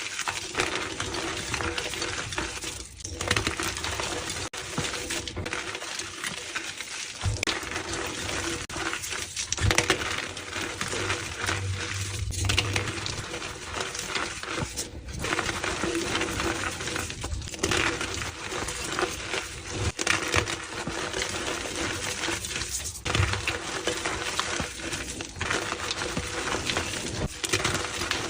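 Pressed blocks of reformed gym chalk being crushed and crumbled, a dense, dry crunching and crackling with many small cracks, broken by several short breaks.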